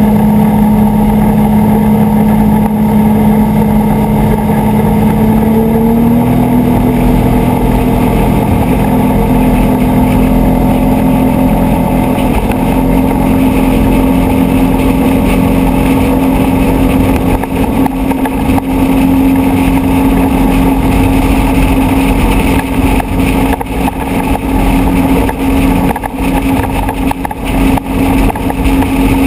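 Pontoon boat's outboard motor running under way. Its tone steps up a little about six seconds in and again around thirteen seconds, over a steady rushing noise that turns choppy in the last ten seconds or so.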